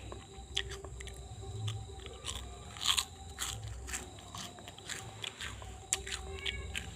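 Hands kneading and rubbing skin during a traditional urut massage, with irregular small clicks and crackles, the loudest about three seconds in.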